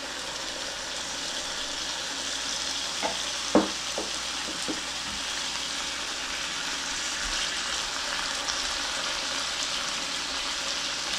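Pork meatballs and bok choy stems sizzling steadily in a hot frying pan, with freshly poured barbecue-soy sauce cooking in, while a spatula stirs them. The spatula knocks against the pan a few times about three to five seconds in, most sharply once.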